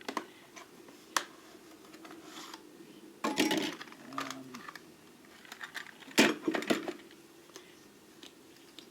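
Small metal lathe tools and parts being handled in a toolbox drawer: a series of clicks and clinks, with clusters of louder knocks about a third of the way in and again about two-thirds in.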